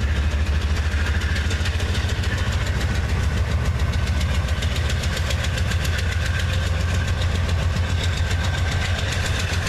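An engine running steadily with a fast, even knocking beat and a deep hum, cutting off abruptly at the end.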